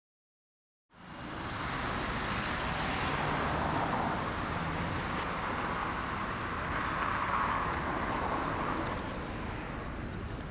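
Silence, then about a second in, city street background starts abruptly: a steady wash of traffic noise with no voices.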